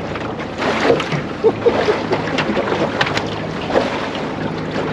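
Outboard motor running steadily in gear, with wind on the microphone and scattered clicks and knocks on the boat.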